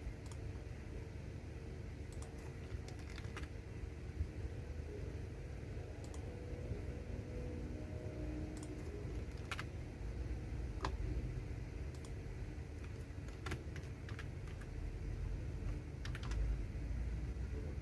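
Computer keyboard being typed on: scattered, irregular key clicks, sometimes a few close together and then a pause, over a steady low background rumble.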